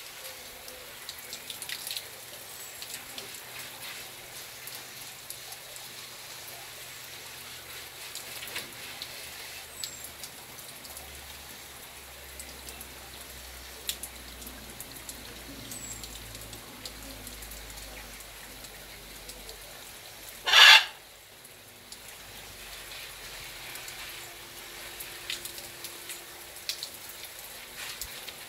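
A shower of water spraying down on a wire-mesh aviary, making a steady hiss with a patter of drops. About two-thirds of the way in, one short, loud harsh burst stands out above it.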